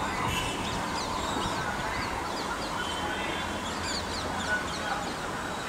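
Many birds chirping and calling in quick, short falling notes over the low, steady rumble of an electric-locomotive-hauled train still some way off.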